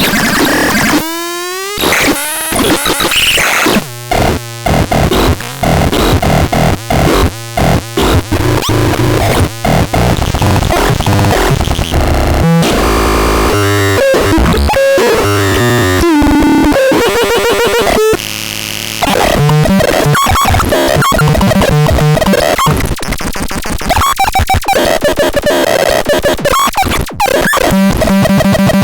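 Synthesizer playing harsh, noisy electronic tones. A rising pitch sweep comes near the start, followed by rapid chopped, stuttering notes, stretches of noise and further pitch sweeps.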